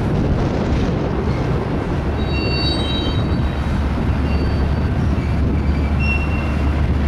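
Empty centerbeam flatcars of a freight train rolling past with a steady rumble of wheels on rail. Brief high-pitched wheel squeals come about two and a half seconds in and again near six seconds.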